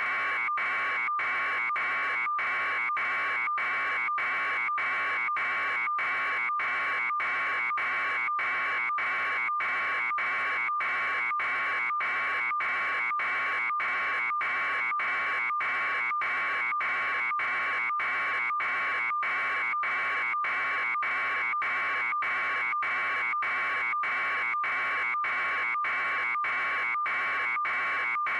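A steady electronic buzz, like an alarm buzzer, broken by short gaps about twice a second.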